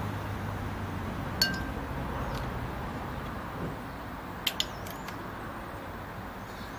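Steady outdoor background noise with a few short, high clinks: one about a second and a half in, and two close together about four and a half seconds in.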